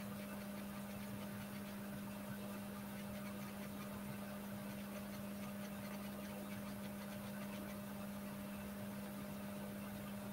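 Steady low hum with a fainter higher hum above it and an even background hiss: the idle noise floor of the recording microphone.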